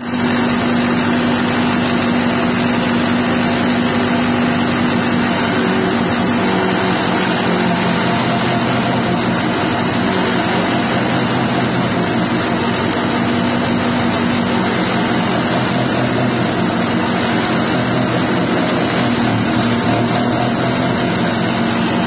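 A grass chopper driven by a small 6.5 hp petrol engine, running loudly and steadily while chopping grass stalks into fine pieces.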